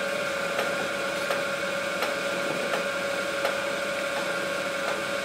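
A machine running with a steady hum of several fixed tones, a faint click repeating about every three quarters of a second.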